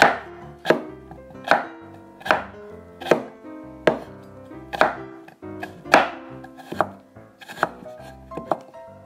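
Knife chopping on a cutting board in an even rhythm, one stroke about every 0.8 seconds, over soft background music.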